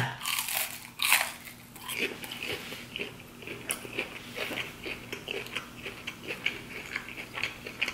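Close-miked biting and chewing of battered fried seafood: one crisp crunch about a second in, then steady chewing with small crunchy clicks a couple of times a second.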